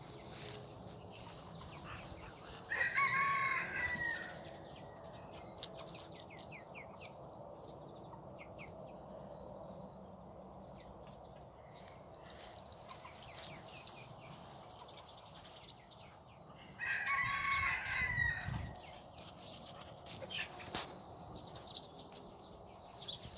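A rooster crowing twice, the crows about fourteen seconds apart, each lasting a second and a half or so.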